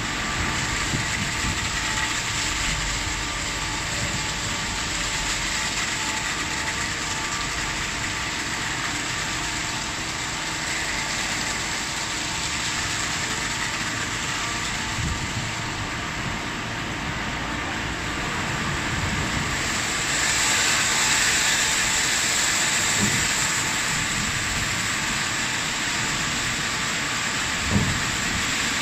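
Automatic car wash at work: rotating brushes scrubbing a car body with water spraying and splashing, a steady mechanical whirring hiss. The spray hiss grows louder about two-thirds of the way through, and there is a single knock near the end.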